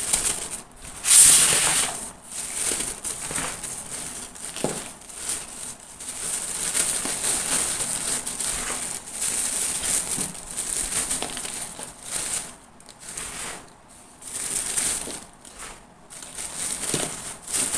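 A clear polythene bag crinkling and rustling in irregular bursts as hands work it open and set a plastic bottle down inside it, the loudest burst a little over a second in.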